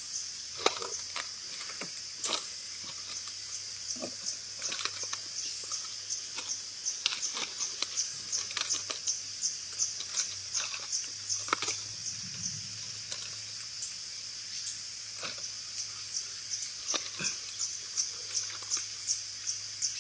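Insects chirping in a steady high pulsing chorus, about two to three pulses a second. Scattered sharp clicks and knocks sound over it.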